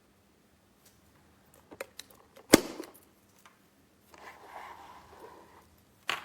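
Handling noises: a few light clicks, then one sharp, loud knock about two and a half seconds in, a short stretch of soft rustling, and another sharp click near the end.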